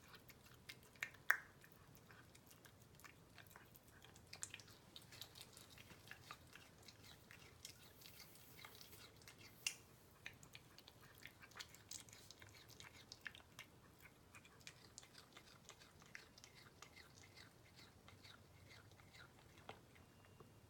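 A cat chewing raw meat: faint, irregular small clicks and smacks of chewing, with a few sharper clicks about a second in and near the middle.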